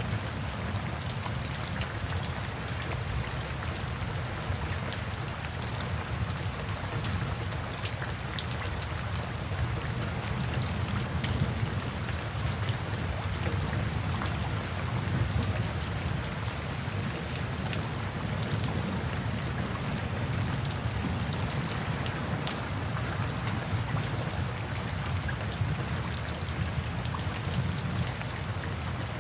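Steady rainfall, many individual drops ticking over a constant hiss, with a steady low rumble underneath.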